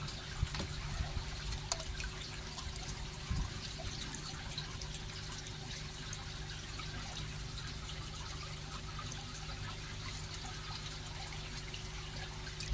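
Water running and trickling steadily over a low hum, with a few small splashes as a hand moves through the water among koi fry in a shallow tub.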